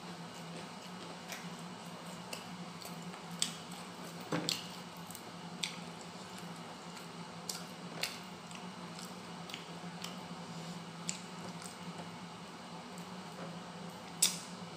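A man chewing fried fish and rice, with scattered wet smacks and clicks every second or two, over a steady low hum.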